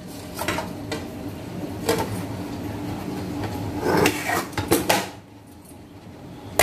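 Perforated steel steamer plate and ceramic serving plate knocking and scraping against each other as they are handled and turned over, with a cluster of clinks about four to five seconds in.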